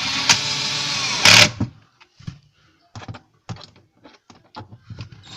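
Power screwdriver running for about a second and a half, driving in a self-tapping screw, with a sharper burst just as it stops, then a few light clicks.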